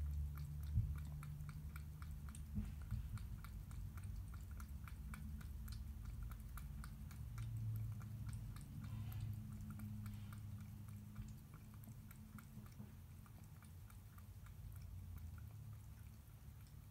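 Cat chewing wet food from a stainless steel bowl: a quick, steady run of small wet clicks and smacks, over a low background hum.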